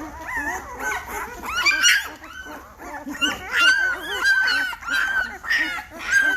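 A litter of week-old Great Bernese puppies crying together: many overlapping high squeals and whines from hungry newborn pups waiting to nurse.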